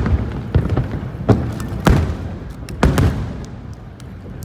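Aerial fireworks bursting in a rapid series of booms and cracks over a low rumble, thinning out and getting quieter near the end.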